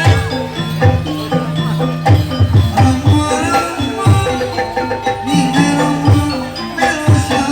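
Kuda lumping accompaniment music: a gamelan-style ensemble with hand drums beating a steady rhythm over ringing metallophone tones.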